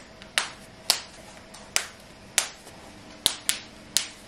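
Plastic press-stud snaps on a cloth nappy being clicked one after another: about seven sharp clicks at uneven intervals.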